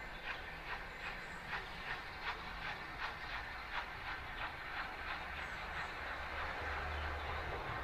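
Exhaust beats of the three-cylinder Bulleid Battle of Britain class Pacific steam locomotive 34053 working a train, an even chuffing of about two and a half beats a second. The beats fade out about five seconds in, leaving a low rumble.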